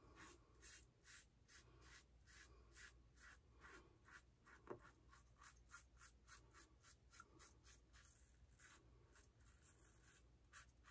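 Faint scraping strokes of a Blackland Blackbird Titanium double-edge safety razor with a new Bolzano blade cutting through lathered stubble, about two to three short strokes a second, one a little louder near the middle.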